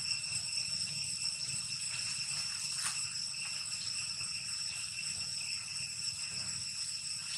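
Steady, high-pitched insect drone, one unbroken tone with overtones, over a low rumble.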